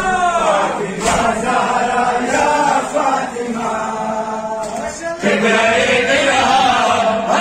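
A crowd of men chanting a noha, a Muharram lament, together in a reverberant hall, with sharp slaps of matam (hands striking bare chests) at the start and about a second in.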